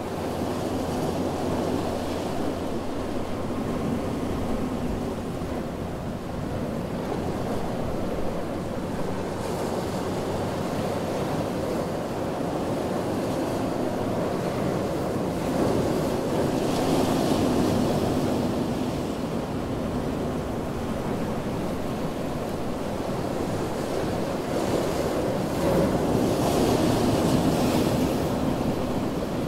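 Ocean surf breaking on a beach: a steady wash of waves that swells louder about halfway through and again near the end.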